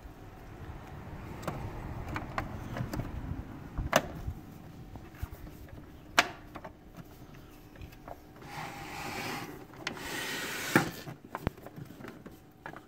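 Plastic end cover of a sewing machine being fitted and pressed onto the machine by hand: a few sharp plastic clicks and knocks, with rubbing and handling noise between them.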